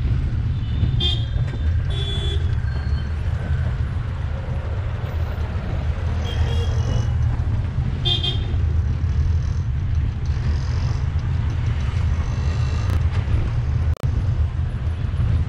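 Road traffic heard from a moving vehicle: a steady low rumble of engine and road noise, with several short horn toots from vehicles, about four of them in the first eight seconds.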